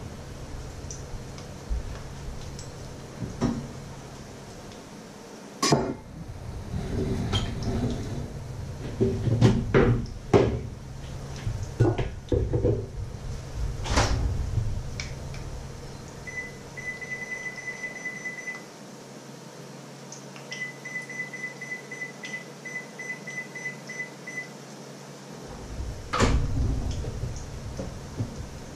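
Kitchen clatter: a string of knocks and clunks of things being handled and set down. About halfway through, a high electronic appliance beep pulses rapidly in two runs of a few seconds each, and one more clunk comes near the end.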